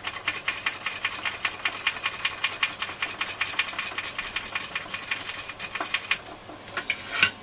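Radio's small battery-test switch clicked rapidly on and off, about seven clicks a second, to work freshly sprayed contact cleaner into its contacts. The clicking stops about six seconds in, with a few last clicks near the end.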